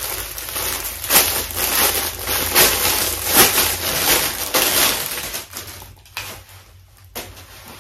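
Plastic packaging rustling and crinkling as clothing is handled and unwrapped. The crackling dies down after about five and a half seconds.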